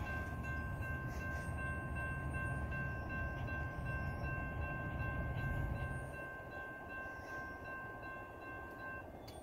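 Railroad grade-crossing warning bell ringing steadily while the crossing gates lower, cutting off about nine seconds in once the gates are down. A low rumble runs underneath and fades away after about six seconds.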